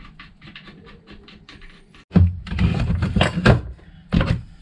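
Hands working the instrument console: a quick run of light clicks for about two seconds, then louder knocks and clatter as parts are handled, during the removal of an old instrument held by thumb screws.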